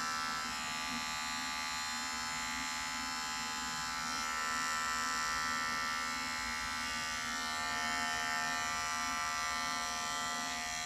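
Cordless Wahl 5-in-1 pet clipper running steadily with an even electric whine while its blade, set to 10, skims up through the hair under a dog's eyes.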